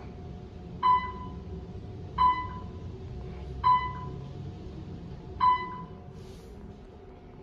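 Otis elevator car riding up with a steady low hum. Its short single-tone floor-passing beep sounds four times, about every second and a half, and the hum eases near the end as the car stops.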